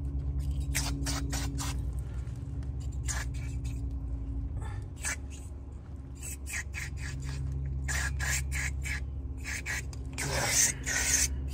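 Aerosol brake cleaner sprayed onto a new brake rotor in a series of short hissing bursts, the longest and loudest near the end as the nearly empty can gives out. A steady low hum runs underneath.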